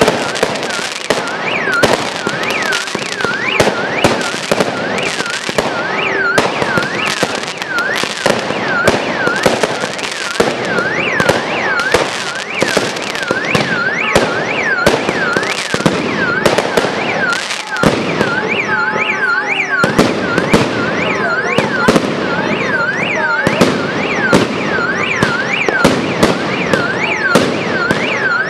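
Fireworks display: a rapid, continuous run of bangs and crackles from aerial shells bursting. Behind them an alarm wails up and down about twice a second.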